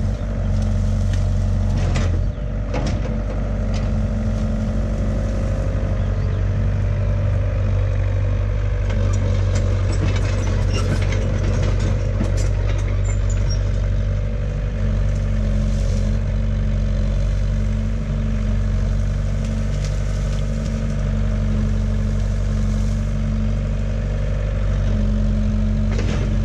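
Caterpillar tracked hydraulic excavator's diesel engine running steadily as the machine works in the brush and tracks along, with scattered sharp cracks and clanks about two seconds in and again between about nine and thirteen seconds in.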